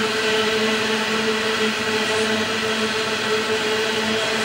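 Loaded coal hopper wagons rolling past on the rails: a steady rolling noise with a constant low hum.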